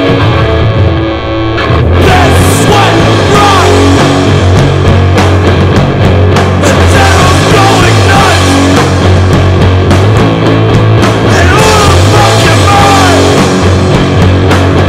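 Loud punk rock recording with distorted electric guitar; after a brief dip the full band comes in about two seconds in and plays on at full loudness.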